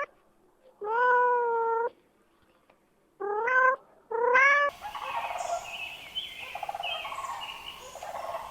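A cat meowing three times, each meow rising and then levelling off, with short silences between. It is followed by a noisier recording of several fowl calling together over a steady background, including a rapid turkey-like gobble.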